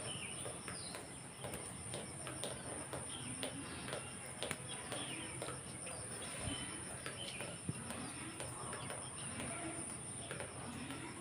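Garden ambience: a steady high-pitched insect drone with faint, evenly pulsing chirps, and birds calling here and there.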